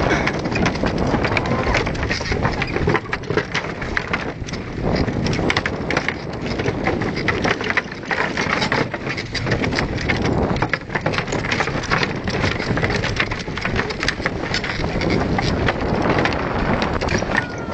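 Bicycle tyres rolling over the loose wooden planks of a plank bridge, the boards clattering and knocking continuously as they are ridden over.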